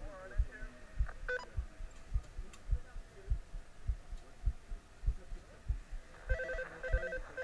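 Dull low thumps repeating steadily, a little over two a second. From about six seconds in, an electronic two-tone ringing pulses on and off.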